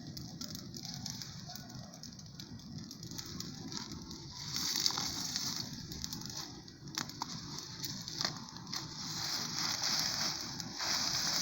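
Bonfire crackling, with scattered sharp pops over a steady hiss that swells about four seconds in and again near the end.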